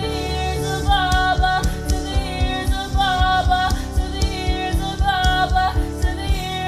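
Worship music: a sustained melodic line that repeats its phrase about once a second over a steady low beat.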